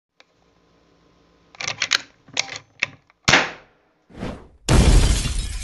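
Logo-intro sound effects: a few quick clusters of sharp mechanical clicks, then a loud sharp crack that trails off. Near the end comes a short swell and then a sudden loud rushing noise with a deep rumble.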